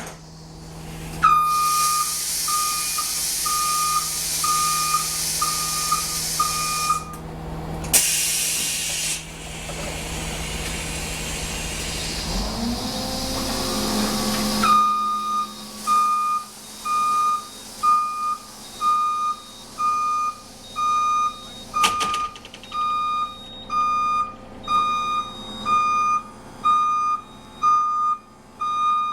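Transit bus's warning beeper pulsing over a loud hiss of air for several seconds, then a short burst of air, a rising motor hum, and the beeper pulsing on alone, about one and a half beeps a second.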